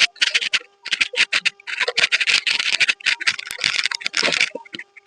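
Cordless pressure washer spraying water onto the bike in quick, irregular on-off bursts, with a faint steady hum underneath.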